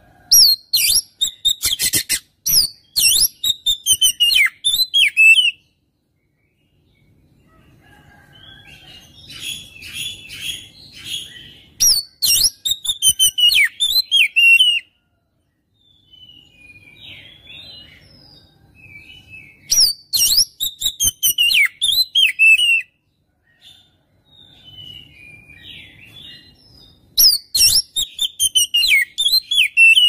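Oriental magpie-robin (kacer) singing in four loud bursts of a few seconds each, separated by short pauses. Each burst mixes rapid sharp clicking notes with whistled phrases that slide downward in pitch.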